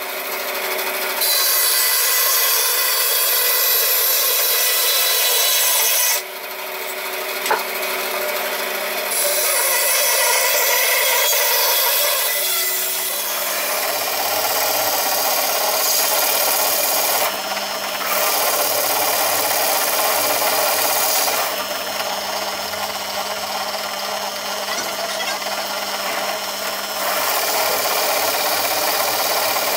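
Power tool cutting or abrading wood, running steadily in several spells that start and stop abruptly.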